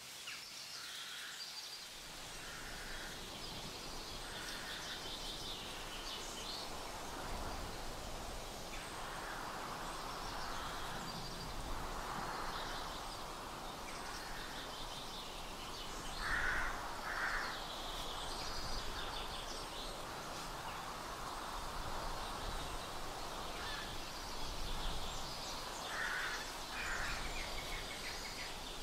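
Outdoor ambience: birds chirping and calling over a steady background hiss, with two louder double calls, one midway and one near the end.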